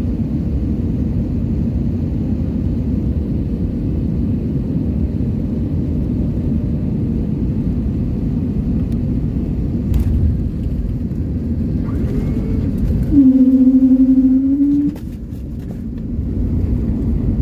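Jet airliner cabin noise on the ground after landing: a steady low rumble of engines and rolling wheels. Near the end a loud, steady low hum lasts about two seconds, and after it the rumble drops to a lower level.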